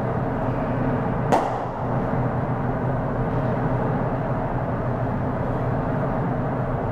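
A single sharp crack about a second in, a cricket bat striking the ball, over a steady background hum.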